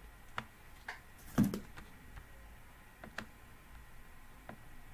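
Computer mouse clicking: faint, irregularly spaced clicks, with one slightly heavier click about a second and a half in.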